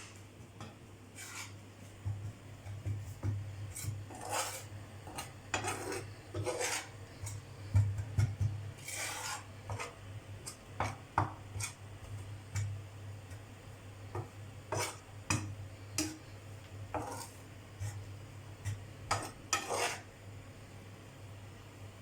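A metal ladle scraping and stirring in a pan in irregular strokes as gram flour is roasted in ghee, over a steady low hum.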